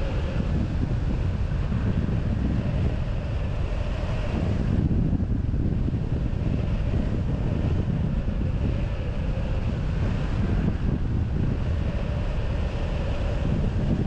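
Rushing airflow buffeting the camera microphone on a hang glider in flight: a steady, loud wind rumble with no breaks.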